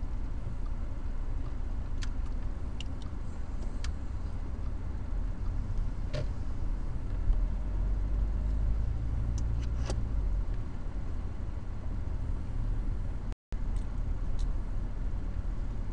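Car driving slowly, heard from inside the cabin: a steady low engine and road rumble that swells for a few seconds in the middle, with a few faint clicks. The sound cuts out completely for a moment near the end.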